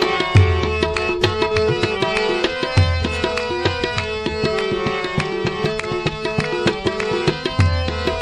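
Qawwali music: tabla playing quick strokes with deep bass thumps every couple of seconds, over sustained harmonium notes.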